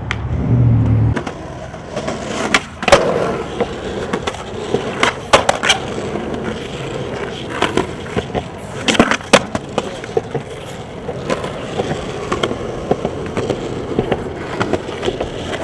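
Skateboard wheels rolling over rough, cracked concrete, with sharp clacks of the board hitting the ground scattered throughout, the loudest about 3, 5 and 9 seconds in. A low steady hum fills the first second.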